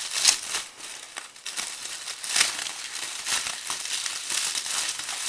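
Packing paper being crinkled and crumpled as a wrapped item is unwrapped by hand, in irregular rustling crackles.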